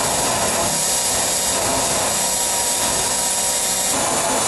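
Power drill spinning a wire wheel brush against a car's sheet-steel body panel, scouring primer and paint from around a trim hole down to bare metal. A steady motor whine over a harsh scratching hiss.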